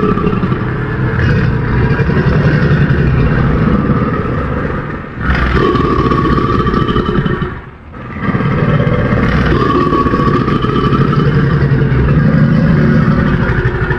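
Made-up Carnotaurus creature call sound effect, mixed from a rooster call and a puppet creature's voice. Three long, rough calls follow one another with a steady higher tone running through them: one breaks off about five seconds in, a shorter one follows, and a longer one starts about eight seconds in.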